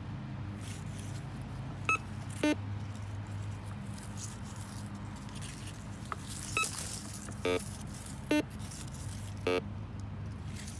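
Metal detector giving brief target beeps as its coil sweeps over the ground, signalling buried metal: six beeps in all, two higher-pitched and four lower-pitched, over a faint steady hum.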